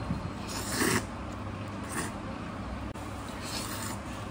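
Slurping rice noodles: one louder slurp about a second in, then fainter slurps or sips, over a steady low hum.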